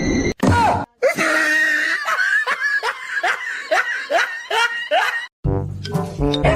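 Rhythmic laughter: a run of about a dozen short pitched laughs, two or three a second, from about a second in until about five seconds. Then it cuts abruptly to a low, pulsing rumble.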